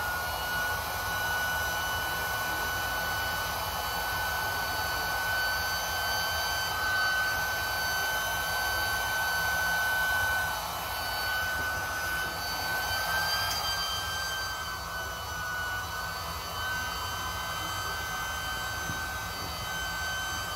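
Intex Quick-Fill battery-powered electric air pump running steadily: a high motor whine over rushing air as it inflates a chamber of an inflatable kayak.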